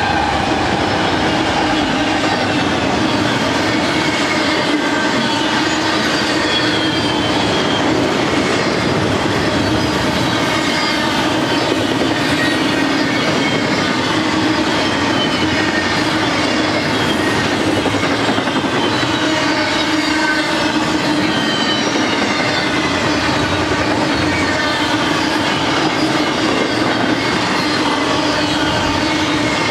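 Double-stack intermodal container cars rolling past at steady speed: steel wheels clattering over the rails, with a high wavering squeal from the wheels.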